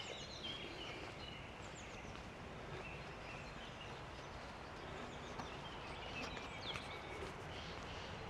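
Quiet open-air ambience: a steady low hiss with faint songbird chirps scattered through it.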